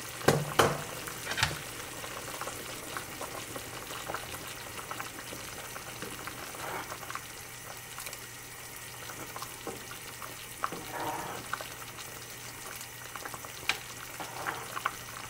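Pot of chicken soup bubbling steadily at a boil, with a metal ladle stirring and scraping through it. A few sharp knocks of utensils near the start are the loudest sounds.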